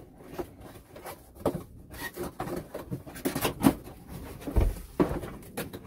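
Cardboard coffee-machine box being handled and opened on a counter: irregular rustling, scraping and light knocks of the carton and its packing, with a dull thump toward the end.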